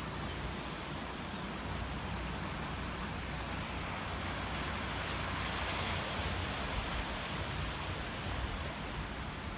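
Sea surf washing in over a boulder shore, a steady rushing that swells a little around the middle, over a low rumble of wind on the microphone.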